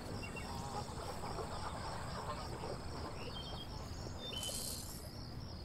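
Marsh ambience: an insect chirping in a steady high pulse, about three times a second, with a few short bird chirps and a brief hiss about four and a half seconds in.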